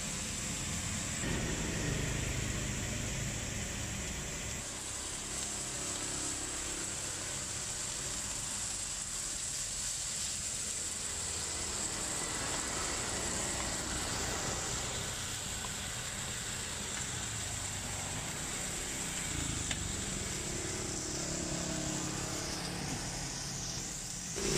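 Beef patties and sausages sizzling on a flat-top griddle, a steady hiss, over the continuous noise of street traffic.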